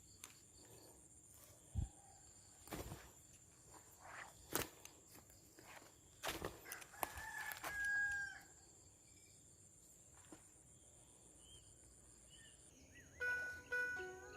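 A rooster crows once, about seven seconds in, between scattered soft knocks. Music starts near the end.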